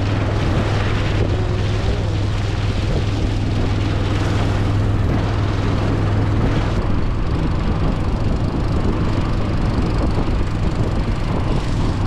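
Small lake tour boat's engine running steadily under way, a constant low drone, with water rushing past the hull.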